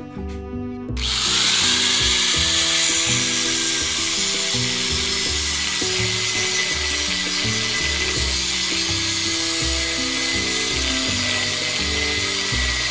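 Handheld angle grinder running steadily against a steel shaft, a loud high-pitched hiss that starts abruptly about a second in. Background music with low bass notes plays throughout.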